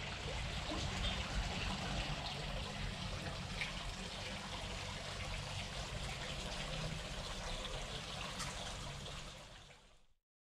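Steady splashing of water from a tiered garden fountain, fading out near the end.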